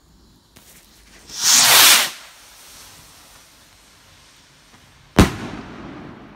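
A firework rocket going up with a loud rushing whoosh about a second in, then one sharp bang a few seconds later as it bursts, the boom trailing off.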